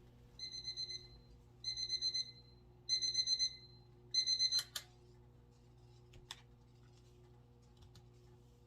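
Electronic alarm beeper sounding in four groups of rapid high beeps about a second apart, like a digital alarm clock or timer, then stopped with a click.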